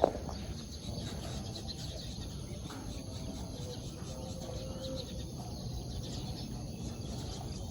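Steady outdoor ambience with faint bird calls and insects.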